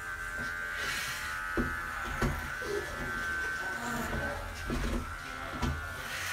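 Electric pet clippers buzzing steadily as they shave a pug's coat, with a few light knocks along the way.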